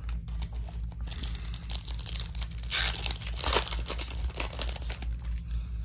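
Hands tearing open the sealed plastic wrapper of a Topps Chrome trading card pack, the wrapper crinkling and ripping, loudest in the middle.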